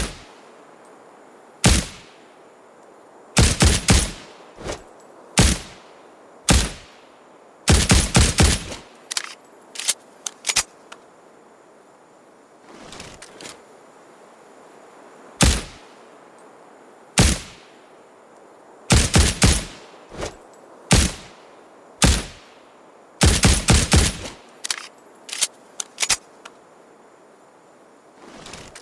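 Suppressed 9mm Ruger Security-9 pistol firing: single shots at irregular intervals mixed with quick strings of several shots in rapid succession.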